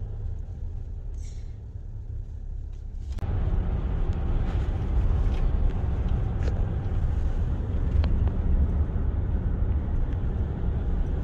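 Road and engine noise inside a moving car's cabin: a steady low rumble that jumps louder and hissier about three seconds in, as at highway speed.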